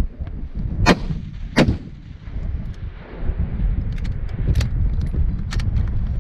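Rifle shots: two loud sharp cracks about two-thirds of a second apart near the start, then several fainter shots over the next few seconds. Gusting wind rumbles on the microphone throughout.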